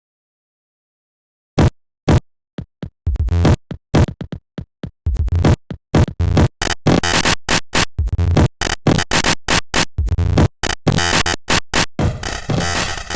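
Electronic drum-machine beat processed through the Octo-Tweaker JSFX effect plugin, coming out chopped and stuttering. After a second and a half of silence, sparse short hits start, grow steadily denser, and run together into a noisy continuous stream near the end.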